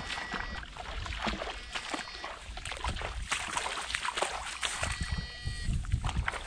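Footsteps wading through shin-deep water in a flooded rice paddy: repeated sloshing splashes, one after another. A faint thin high tone comes and goes briefly three times.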